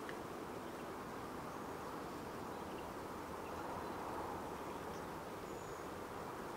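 Steady, soft outdoor ambience: an even windy hiss with a few faint, brief high chirps scattered through it.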